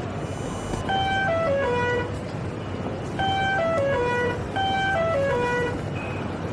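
An electronic chime of four notes stepping downward, sounded three times in a row over a steady low rumble. A brief hiss comes just before the first chime.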